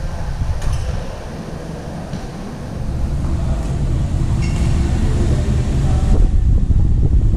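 A steady low rumble of air noise in a badminton hall, with a few faint sharp hits of rackets striking a shuttlecock and a short sneaker squeak on the court floor about four and a half seconds in.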